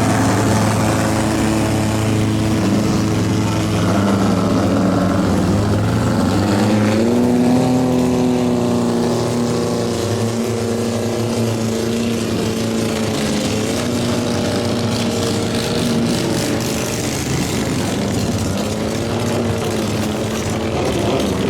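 Racing boat engines running steadily, their pitch rising a few times as the throttle opens.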